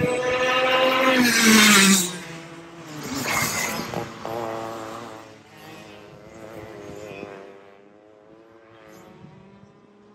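Racing kart engines passing at speed with a high buzzing note. The loudest pass comes in the first two seconds, its pitch dropping as it goes by. A second kart passes about three seconds in, and then the engine sound fades to a fainter buzz.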